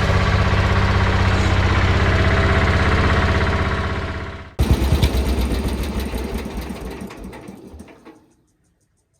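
Small garden tractor engine running steadily with a fast, even pulse. About four and a half seconds in it breaks off abruptly, then resumes and fades to silence by about eight seconds.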